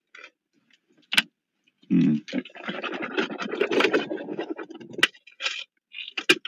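Close scraping and rustling handling noise, with a sharp click about a second in and a few more clicks near the end.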